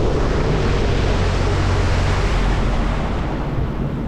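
Sea-Doo Fish Pro Trophy jet ski running at speed over open water. The engine is a steady low drone under rushing water and wind noise on the microphone, easing slightly in the last second.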